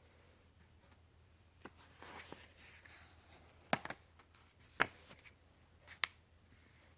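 Pages of a coloring book being handled and turned: a soft paper rustle about two seconds in, then three short, sharp clicks about a second apart.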